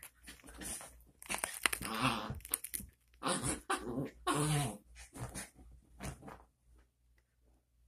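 A Chihuahua makes several short grumbling vocal sounds while it squirms and rubs against a fabric recliner, with scratchy rustling of the upholstery. The sounds are loudest between about one and five seconds in.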